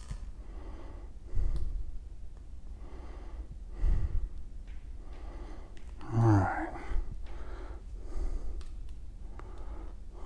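A man breathing through his nose close to the microphone, a breath about every two and a half seconds, with a short voiced grunt or sigh about six seconds in.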